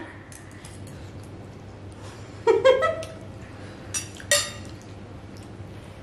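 Forks clinking and scraping against glass bowls of noodles while eating, with one sharp clink that rings briefly about four seconds in. A short voiced 'mm' from one of the eaters comes about two and a half seconds in.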